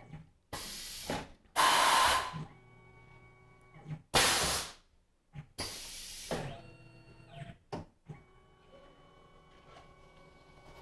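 Tormach PCNC 1100 mill running an automatic tool change: four short, loud hisses of compressed air, about half a second each, within the first six seconds. A steady machine hum and whine runs between them and carries on after them, stepping down in pitch about seven seconds in.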